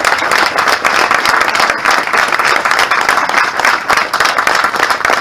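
Loud, steady applause from a crowd, many hands clapping at once.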